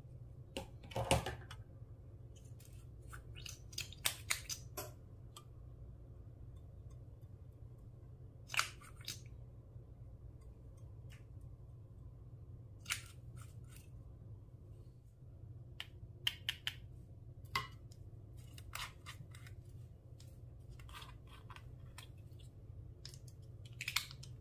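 Clear slime being mixed and squeezed by hand, giving scattered sticky clicks and pops in irregular clusters over a steady low hum.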